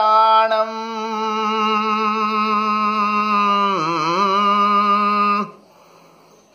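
A man's solo voice chanting a Sanskrit prayer, holding the word 'purāṇas' on one long, steady note with no accompaniment. The note dips in pitch near the end and stops about five and a half seconds in.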